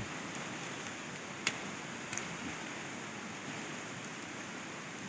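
Steady rain together with a rain-swollen, fast-flowing river, heard as a continuous even hiss. A sharp tick about a second and a half in and a fainter one about two seconds in.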